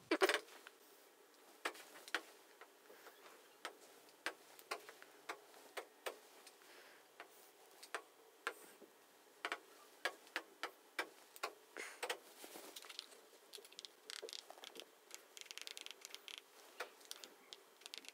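Faint, irregular clicks and taps of someone working a computer and typing, about one or two a second, with a quicker patter of taps near the end. The loudest is a single click right at the start.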